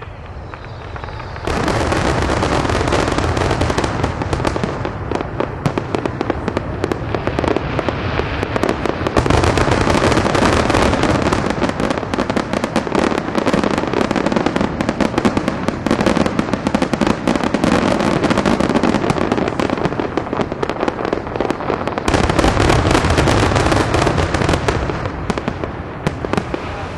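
A fireworks barrage: a dense, continuous stream of rapid cracks and pops. It starts abruptly about a second and a half in and grows heavier for a while in the middle and again near the end.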